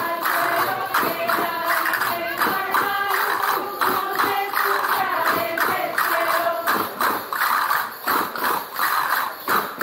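A group of women singing a traditional folk song, with tambourines beating a steady rhythm under the voices. The beat stands out more in the last few seconds.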